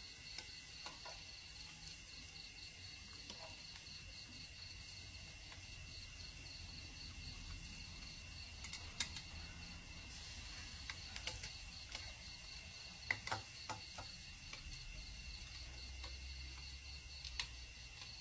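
Crickets chirring steadily at two high pitches, with a few sharp clicks and taps of a spoon and chopsticks against the metal mookata grill pan.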